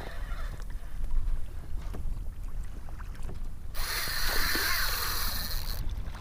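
Fishing reel's drag buzzing as a hooked fish pulls line off, starting sharply about four seconds in and cutting off after about two seconds, over a low rumble of wind on the microphone.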